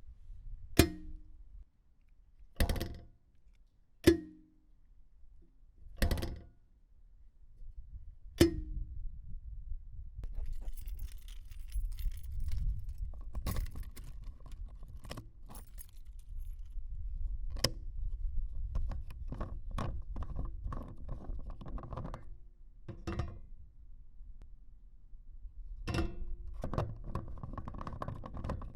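Parts of a 1990 Volvo 240 being worked by hand: five sharp thunks about every two seconds, each with a short low ring, then a long run of small clicks, clinks and rattles over a low rumble.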